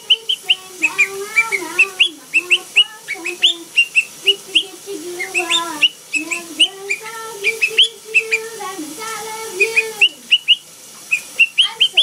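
Blue Quaker parrot whistling in quick, short rising chirps, two to three a second, along with a lower sung melody. The chirps pause briefly about halfway through and again near the end.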